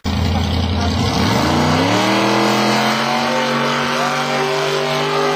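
Mud drag buggy's engine revving up hard on launch, its pitch climbing steeply over about a second, then held steady at high revs as it runs down the dirt track.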